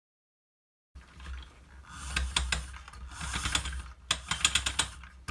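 Hard plastic parts of a toy tractor's rear-axle housing being handled, clicking and rattling in quick clusters as they are turned and shifted in the hands. Starts about a second in.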